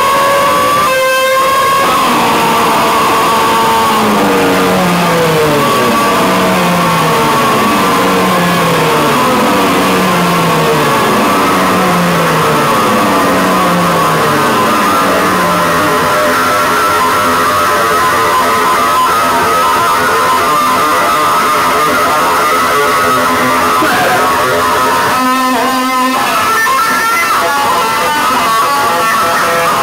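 Live noise-rock electric bass played loud: a run of repeated falling slides about once a second, then a held droning tone, with a short burst of rapid stuttering notes near the end.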